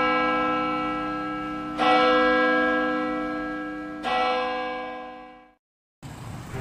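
Church bell tolling three times, about two seconds apart, each stroke ringing on and fading away. Soft music starts near the end.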